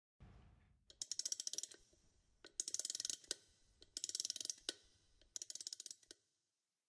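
Rapid clicking in four short bursts, about a second and a half apart, as banks of stage lights snap on in waves. A low thump opens it.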